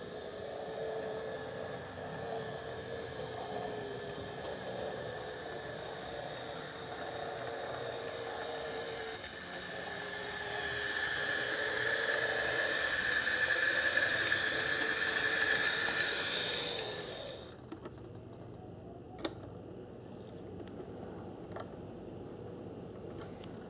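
HO-scale brass Bowser 4-8-2 Mountain model locomotive running on track, its electric motor and gears giving a steady whine with a hiss on top. The whine grows louder as it passes close by, then cuts off sharply about 17 seconds in, leaving a few faint clicks.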